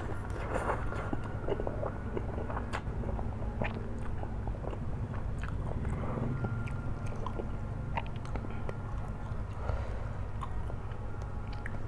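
Close-up eating sounds of flat rice noodles being chewed: wet chewing with many small irregular clicks and smacks, over a steady low hum.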